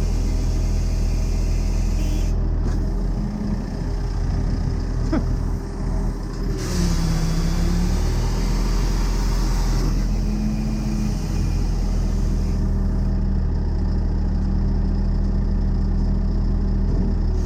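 Heavy diesel engine running steadily at low speed, its pitch dipping briefly about seven seconds in and rising briefly around ten seconds. A single sharp click comes about five seconds in.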